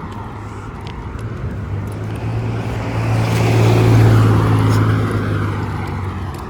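A car driving past: its engine hum and tyre noise grow louder to a peak about four seconds in, then fade away.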